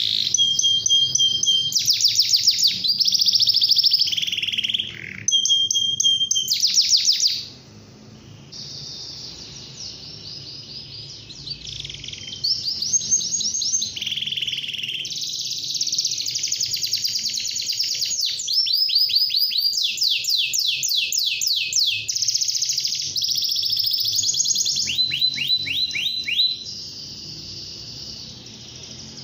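Domestic canary singing a long, continuous song of rapid high trills, one phrase giving way to the next every second or two. The song goes quieter for a few seconds about a quarter of the way in, then comes back, and drops in level near the end.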